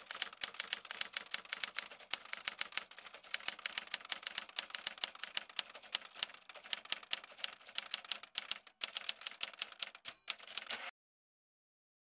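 Typewriter typing: a fast run of sharp key clacks, several a second. A short high ring, like a typewriter's margin bell, comes a little past ten seconds in, and the typing stops soon after.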